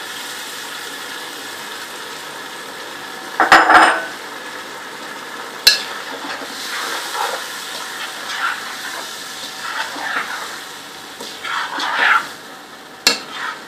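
Boiled whole mung dal being stirred into a frying masala in a pot with a metal spoon: a steady sizzle, then sharp clanks of the spoon against the pot about three and a half seconds in, again near six seconds and near the end, with scraping stirring strokes in between.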